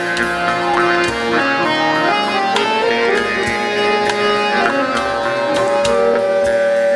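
Live world-music band playing: steady percussion strikes under several sustained melodic instrument lines, with one long held note coming in about five seconds in.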